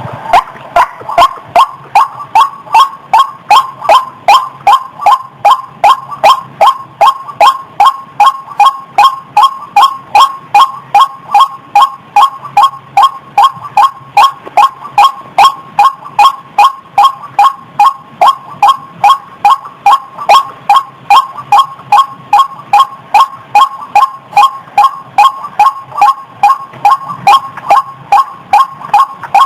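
White-breasted waterhen (ruak-ruak) calling, a loud, steady run of short, clipped 'kwak' notes at about two and a half a second, used as a trapping lure call.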